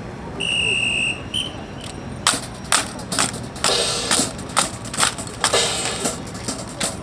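Drill team's rifles and boots in a silent rifle drill: sharp, irregular clacks and cracks of rifles being slapped and caught and heels striking, starting about two seconds in. A brief high steady tone sounds near the start.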